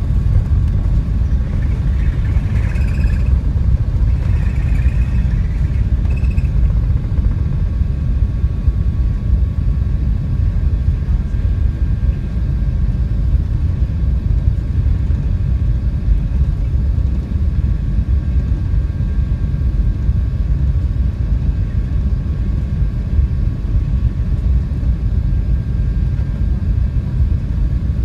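Steady low rumble inside the cabin of an Airbus A380, with some brief faint higher sounds about two to six seconds in.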